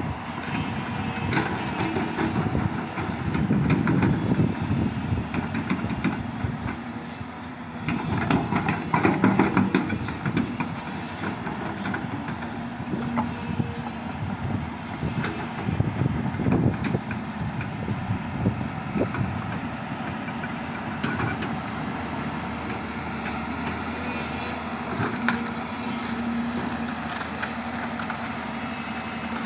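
Diesel engines of large crawler excavators working, swelling louder under hydraulic load about 4, 9 and 16 seconds in, with scattered clanks and rattles throughout.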